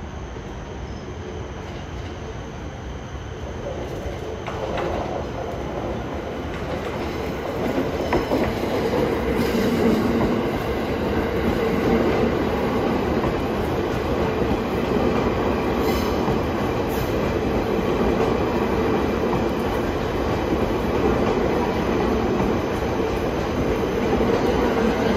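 JR East E259 series Narita Express electric train pulling in past at close range. Its wheels run on the track with a steady rumble and a steady tone underneath, getting louder over the first several seconds as the cars draw alongside, with a few brief clicks.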